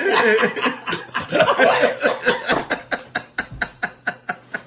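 Men laughing hard: loud, dense laughter that after about two and a half seconds breaks into quick, breathy pulses, about five a second.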